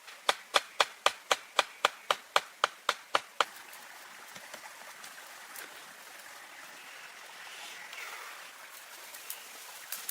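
About a dozen sharp, evenly spaced knocks, roughly four a second, that stop about three and a half seconds in. After them comes the steady rush of flowing water.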